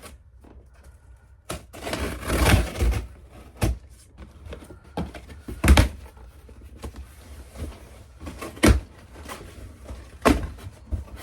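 Cardboard shipping box being opened and handled. A noisy scraping stretch comes about two seconds in, then several sharp knocks and thuds.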